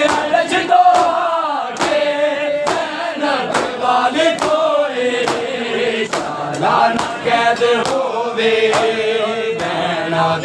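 Crowd of men chanting a Punjabi noha while beating their chests together in matam. The slaps land in unison, about one a second, over the chanting voices.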